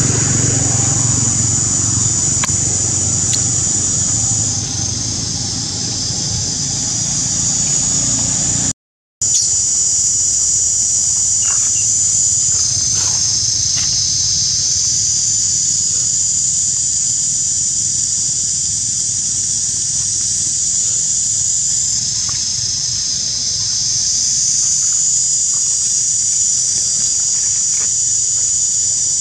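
A steady, high-pitched insect chorus buzzing, swelling and fading in loudness. For about the first nine seconds a low rumble runs beneath it, ending at a brief dropout to silence.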